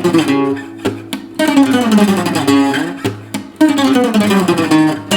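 Bajo quinto, a ten-string Mexican guitar with five double courses, played with about four sharp chord strums and descending runs of notes between them.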